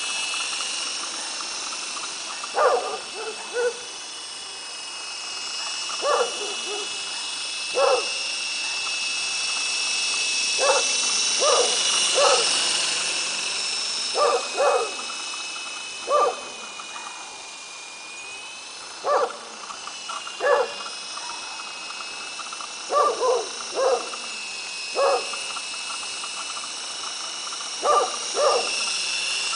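Esky Big Lama electric RC helicopter's motors and rotors whining steadily in flight, growing louder toward the middle as it passes close overhead. Dogs bark over it in short barks, singly or in twos and threes, every few seconds.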